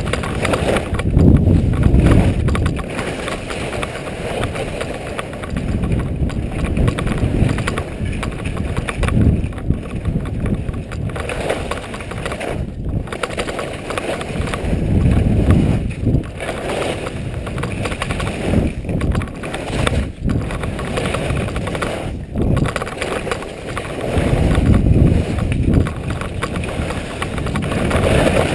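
Skis sliding and scraping over snow through a run of turns, with wind buffeting the camera microphone. The low rumble swells loudly several times: near the start, about halfway through and near the end.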